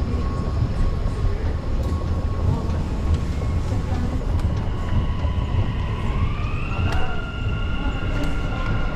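Dubai Metro train running in the underground station: a steady low rumble with a thin whine. About six seconds in the whine rises in pitch and holds higher, as the electric motors do when a train pulls away. There is a sharp click near seven seconds.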